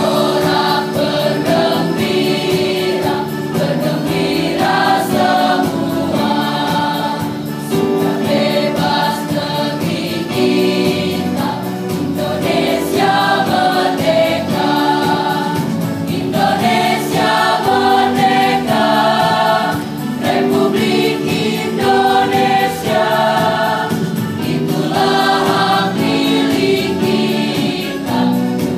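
Large mixed high-school choir singing a song in several voice parts at once, the notes changing every second or so without a break.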